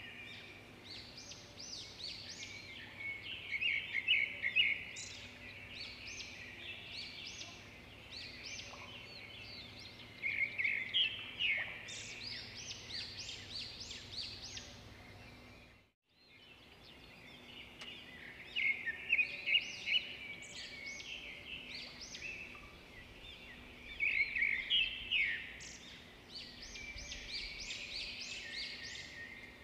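Songbirds chirping and trilling in quick bouts every few seconds over a faint steady background; the birdsong dips to silence for a moment about halfway through, then starts again.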